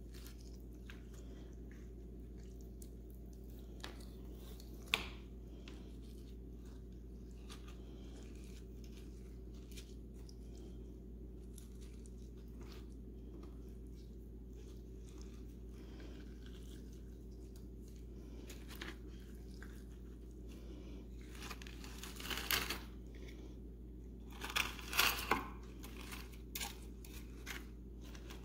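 Wet crunching and crackling as fingers tear open a fish's stomach and pick through its contents on a wooden cutting board. It is faint and scattered at first, with louder spells of crunching about three-quarters of the way through, over a steady low hum.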